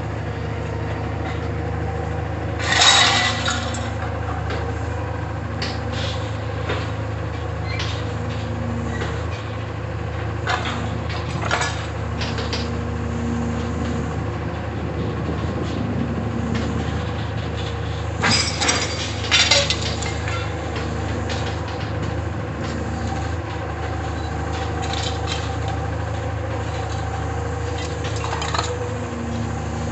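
Diesel engine of a Caterpillar M322 wheeled excavator running steadily while its grapple loads scrap metal into a rail car, with sharp metallic clanks and crashes of scrap landing several times, loudest about three seconds in and in a cluster about two-thirds of the way through.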